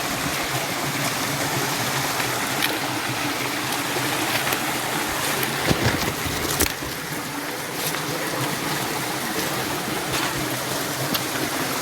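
Stream water rushing over rocks with a steady, even sound, with a few sharp clicks and knocks scattered through it.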